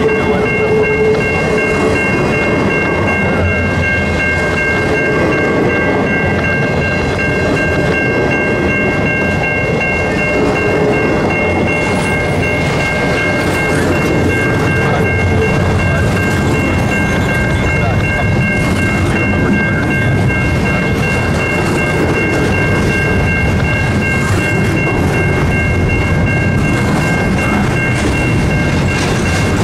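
Canadian Pacific double-stack intermodal freight train rolling past, with a steady rumble of its well cars and wheels on the rails. Over it the level-crossing bell rings with a steady high tone.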